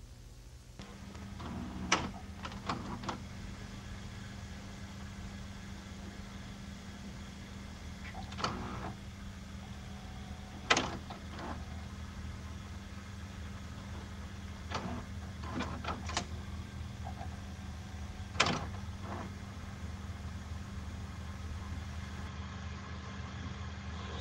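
Steady low electrical hum under scattered sharp clicks and short high chirps, a few seconds apart, as on-screen chat lines appear. Right at the end a rising, siren-like wail begins.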